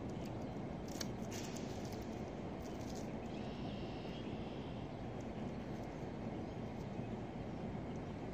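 Fishing rod and reel during a cast: a sharp click about a second in, then a few seconds of faint whirring of line and reel. A steady low outdoor rumble runs underneath throughout.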